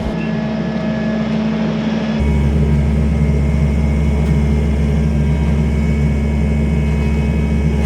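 Tractor engine running steadily, growing louder about two seconds in.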